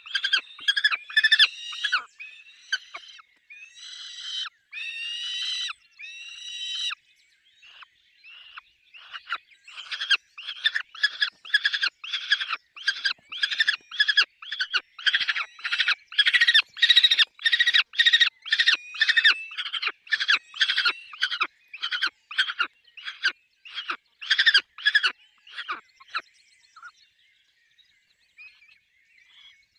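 Peregrine falcons calling with harsh, repeated calls: a few longer drawn-out calls, then a fast run of short calls, about two a second, that fades out near the end.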